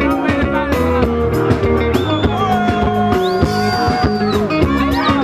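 Live band music at a sound check, with a steady bass and beat. A long held melodic note comes in about two seconds in and breaks off after about four seconds.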